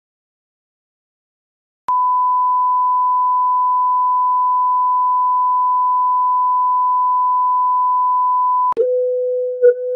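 Steady electronic test tone like the reference tone played with television colour bars, starting about two seconds in after silence. Near the end it switches abruptly to a lower tone an octave down.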